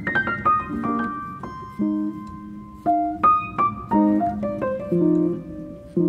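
Background piano music: a melody of struck notes over lower chords, with a quick run of notes at the start.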